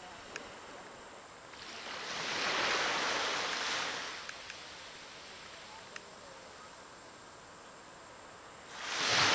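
Small waves breaking and washing up the beach: one wave swells in about two seconds in and fades by four seconds, and another builds near the end, with a low steady hiss of surf between them.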